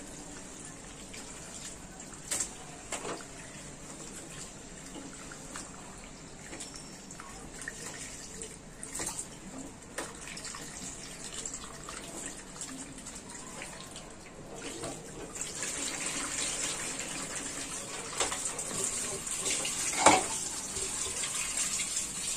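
Tap water running onto pieces of beef liver in a steel plate as they are rinsed and rubbed by hand, with small splashes and clicks. The flow gets louder about two-thirds of the way through, and there is one sharp knock near the end.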